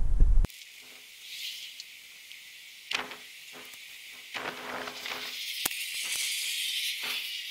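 A steady high hiss with a few soft knocks and one sharp click about five and a half seconds in.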